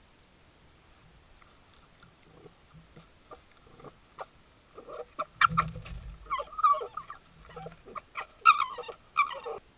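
Red fox making a quick series of short calls and clicks, several gliding up and down in pitch, faint at first and much louder from about five seconds in.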